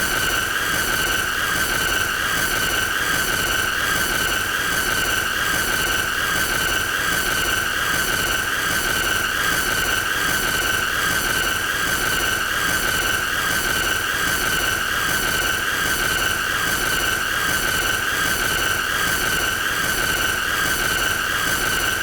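A continuous shrill, high-pitched tone with a slight regular flutter, played as an annoying sound effect.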